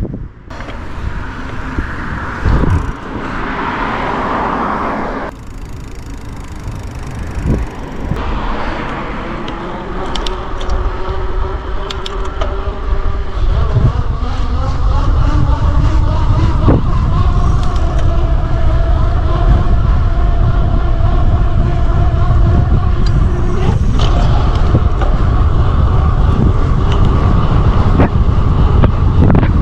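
Wind buffeting the microphone of a cyclist riding on the road, turning into a heavy rumble about halfway through, with a steady hum under it.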